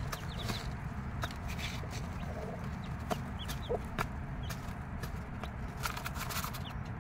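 Six-day-old chicks peeping in short, high, falling notes, with a few soft clucks from the mother hen and scattered clicks of pecking.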